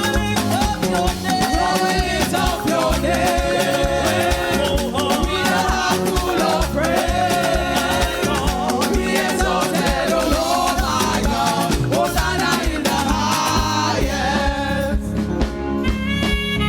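Live gospel praise music: singers over a band with a steady, danceable beat, the singing dropping out near the end as held instrumental notes carry on.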